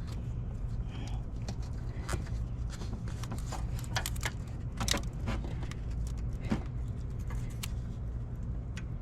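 Scattered light metallic clicks and taps of hand tools and engine-bay parts being worked, over a steady low hum.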